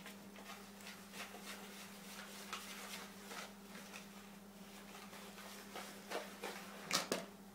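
Fork stirring eggs into flour in a mixing bowl: faint, irregular scraping and tapping against the bowl, over a steady low hum.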